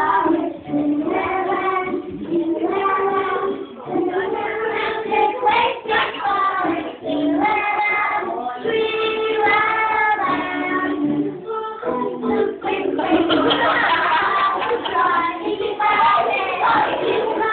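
A group of young children singing a song together. About twelve seconds in, the voices grow louder and busier.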